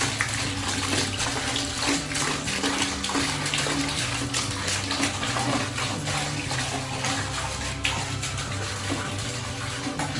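Water pouring and splashing steadily, over background music with a low bass line that changes note every half second or so.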